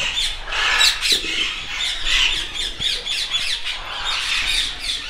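Many Indian ringneck parakeets squawking and chattering in overlapping calls throughout, with a light knock about a second in.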